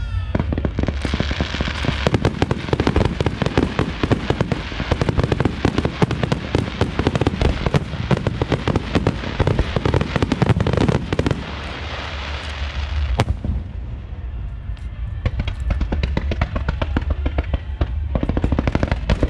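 Fireworks display: a rapid, continuous barrage of bangs and crackling from shells bursting overhead and ground-fired pieces. About two-thirds of the way through the barrage thins out to scattered separate bangs.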